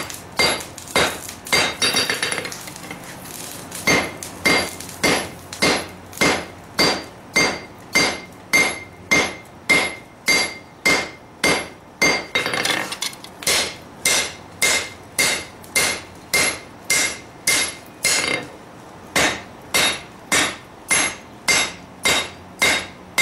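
Hammer blows on a hot lawnmower-blade steel over an anvil, drawing out the end of the blade: a steady run of strikes about one and a half a second, each with a bright anvil ring. The blows pause briefly about two seconds in, then carry on.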